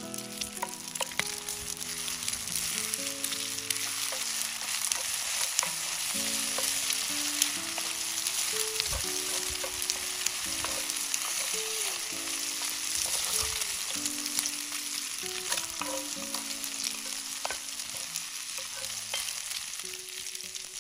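Eggs and bacon sizzling steadily in a cast-iron skillet over campfire coals. A wooden spatula stirs and scrapes through the eggs, with scattered light clicks against the pan.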